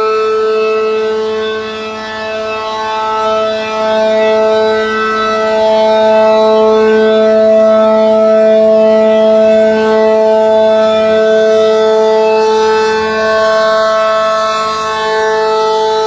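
ACA Allertor 125 outdoor warning siren, the 8/12-port model, sounding its steady alert tone: a two-note chord held at constant pitch. It swells and fades slowly as the rotating head sweeps toward and away.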